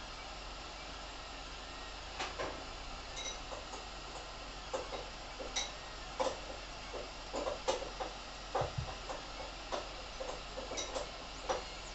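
Creality Ender 3 3D printer running mid-print: a steady fan hum and hiss. From about two seconds in, the moving print head adds many short, irregular chirps and clicks.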